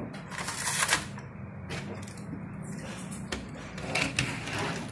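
A few scattered light clicks and knocks of die-cast toy cars and a plastic race-tower playset being handled, over a low steady hum.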